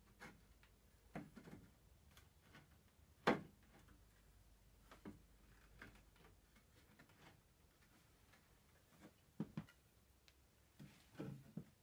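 Faint, scattered wooden knocks and clicks as the parts of an antique wooden rocking chair are handled and dry-fitted together without glue. The loudest knock comes about three seconds in, and a few quick knocks follow near the end.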